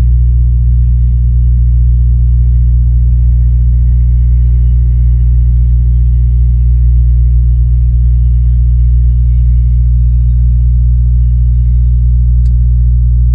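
Steady, loud low rumble of a moving vehicle: an unchanging drone with no rises or breaks.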